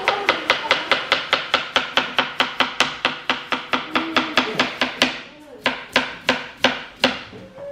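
Kitchen knife chopping chayote (güisquil) on a plastic cutting board. The strokes are quick and regular, about five a second, with a brief pause about five seconds in before they resume.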